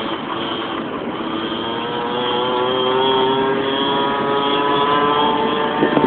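Minimoto pocket bike's small two-stroke engine buzzing at high revs, its pitch climbing slowly and steadily. A brief knock near the end.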